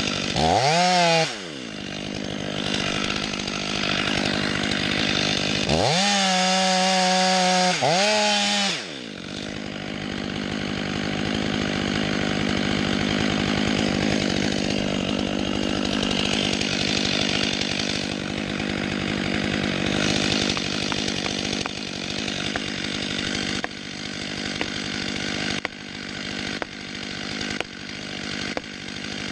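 Chainsaw revving hard twice, its pitch rising and falling, then running under load through a long steady cut in wood. Near the end it swells and drops about once a second as the saw works through the cut.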